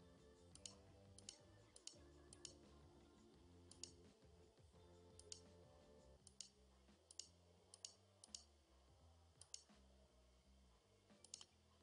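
Computer mouse buttons clicking, about a dozen sharp clicks at irregular intervals, some in quick pairs like double-clicks. Faint music plays underneath.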